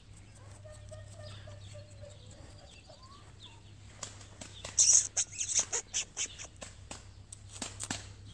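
Faint wavering calls in the first half. Then, from about halfway, a run of loud crackles, clicks and rustles from the handheld camera being moved about, the loudest just before the five-second mark.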